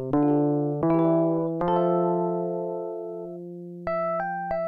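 Yamaha DX7s FM synthesizer played on a freshly reloaded patch: several struck chords that ring and fade over the first few seconds, then three short, higher notes in quick succession near the end.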